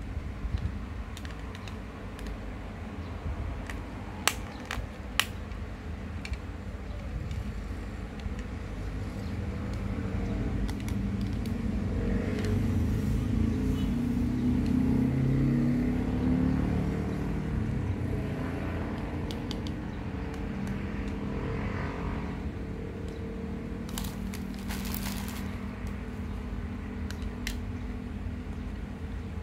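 A motor vehicle passing over a steady low background rumble, swelling and fading over several seconds in the middle. A few sharp clicks from the sunglasses' plastic frame and lenses being handled, two a second apart early and a cluster near the end.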